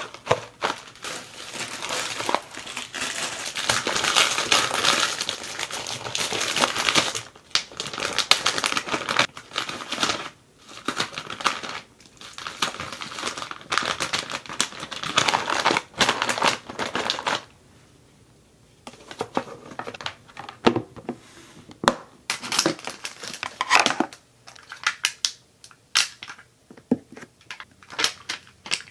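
Plastic packaging and iridescent shredded crinkle filler crinkling and rustling as hands rummage in a gift box and handle plastic sticker pouches. After a brief lull in the last third, it gives way to scattered sharp little clicks and taps as plastic gem stickers are peeled from their sheet and pressed onto the box.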